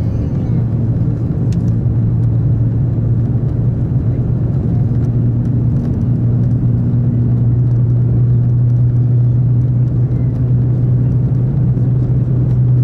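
Cabin noise of a JR Central L0 series maglev train accelerating through about 360 to 400 km/h in a tunnel, running levitated on its superconducting magnets: a steady loud rumble with a strong low hum, growing slightly louder.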